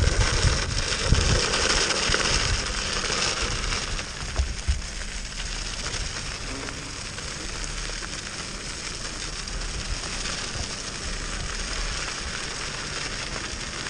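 Off-road skateboard (mountainboard) tyres rolling over a gravel path: a steady crackling hiss, louder for the first couple of seconds, with a few low thumps early on.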